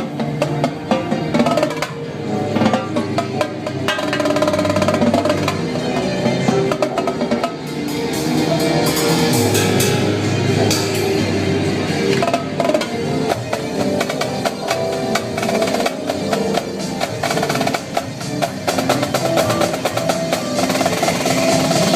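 Live drum-corps-style drumming, many quick stick strokes on drums, played over DJ dance music.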